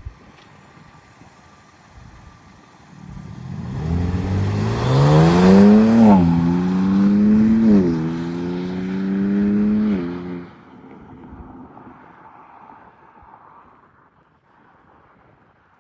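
BMW G80 M3's twin-turbo inline-six, breathing through stock downpipes and muffler with a single resonated midpipe, accelerating hard through the gears. The pitch climbs, drops at an upshift, climbs again, drops at a second upshift, and climbs once more. About ten seconds in the sound falls away suddenly, leaving a low murmur.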